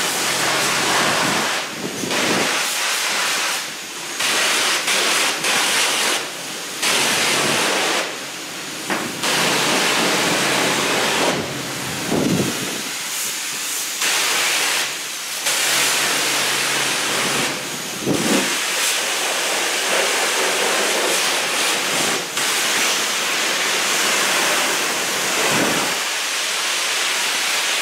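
Pressure washer spraying grease and grime off a zero-turn mower's engine and deck: a loud hissing spray that cuts out briefly and starts again many times as the trigger is let go and squeezed.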